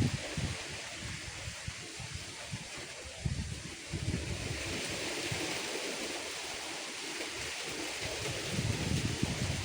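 Strong wind blowing through banana plants, their leaves rustling in a steady hiss, with gusts buffeting the microphone in uneven low rumbles.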